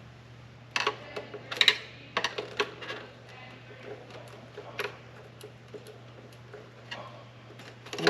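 Irregular sharp clicks and taps of small hard parts and tools being handled, the loudest about a second and a half in, over a steady low hum.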